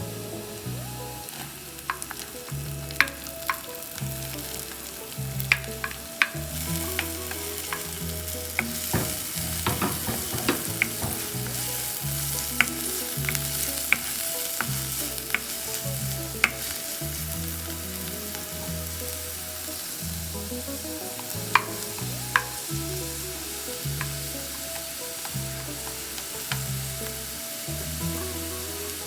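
Food frying and sizzling in a hot pan while being stirred, with sharp clicks of a utensil striking the pan. The sizzle gets louder about six seconds in.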